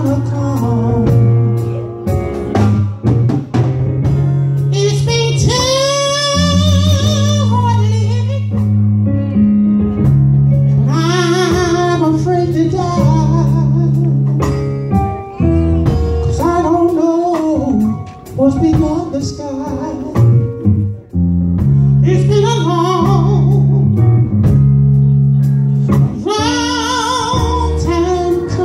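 A pastor singing a song in church, long sung lines with wavering held notes, over instrumental accompaniment with a steady bass line.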